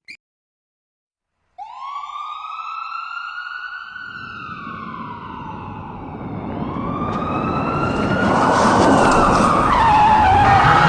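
A siren wail, rising then slowly falling in pitch, with a rumbling vehicle-like noise coming in under it and growing steadily louder.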